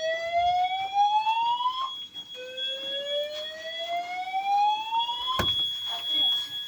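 Fire alarm voice sounders sounding the Dutch slow whoop evacuation tone: slow rising sweeps of about three seconds each, two of them, with a steady high-pitched tone underneath. The whoop cuts off with a click about five seconds in, leaving the steady tone.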